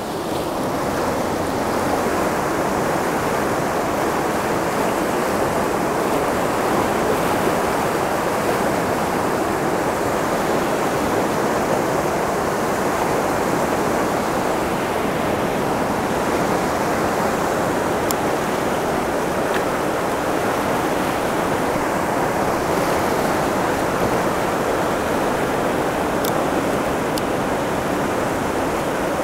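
Steady rushing of a fast whitewater river running through rapids, an even, unbroken roar of water.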